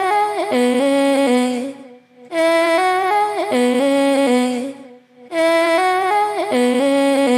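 A vocal sample loop played back: a short sung phrase of held notes in layered harmony, repeating three times with a brief gap between repeats.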